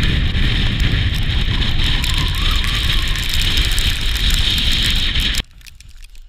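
Strong wind buffeting the camera microphone: a loud, rough rumble with a hiss over it. It cuts off suddenly about five seconds in.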